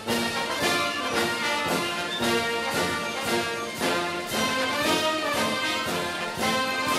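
Orchestral-style background music with brass, steady in level.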